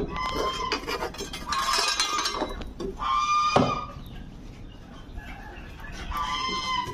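Poultry calling in a few short pitched calls, over clattering knocks and clinks of bamboo poles and debris being poked and shifted with a stick.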